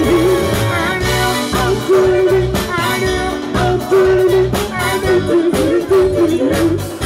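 Live band playing with several singers at microphones, voices over a steady beat of drums and bass guitar.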